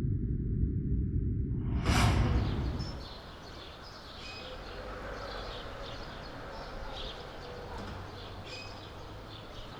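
A low rumble with a whoosh about two seconds in, then birds chirping here and there over a faint outdoor background.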